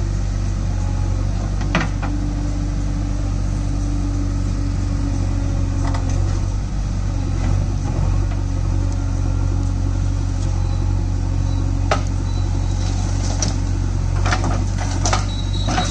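JCB backhoe loader's diesel engine running steadily under load while the backhoe arm digs soil, with a few sharp knocks and scrapes from the bucket, several close together near the end as it swings over and dumps into the trolley.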